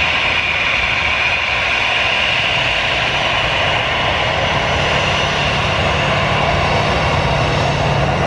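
Jet engines of a Batik Air Airbus A320 taxiing at low power: a steady high whine over a rumble. A low steady engine hum from a road vehicle joins about six seconds in.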